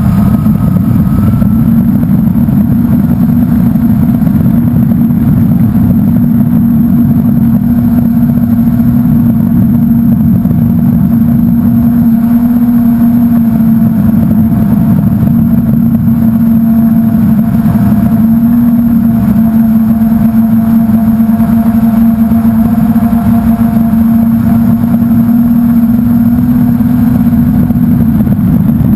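Blade 350 QX quadcopter's four brushless motors and propellers humming steadily in flight, heard up close from the onboard camera, with a heavy low rumble underneath. The pitch dips slightly a few times as the throttle changes.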